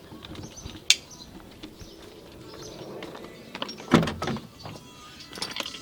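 A few scattered clicks and clunks, the loudest a dull thud about four seconds in.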